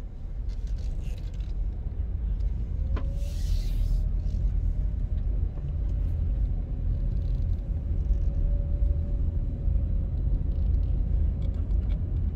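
Car driving slowly, heard from inside the cabin: a steady low engine and road rumble, with a brief hiss about three seconds in and a faint steady whine through the middle.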